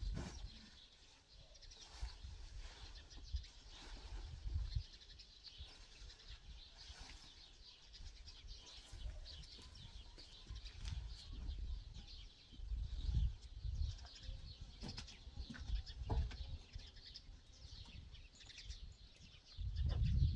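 Birds chirping in a steady, fairly quiet outdoor background, with occasional low rumbles.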